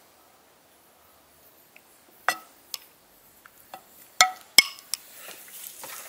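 Metal spoon clinking against a ceramic plate, several sharp clinks from about two seconds in, the two loudest a little past the middle.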